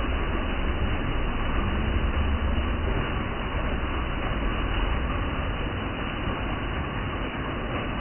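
Water falling over boulders into a pool: a steady, deep rushing noise with no breaks.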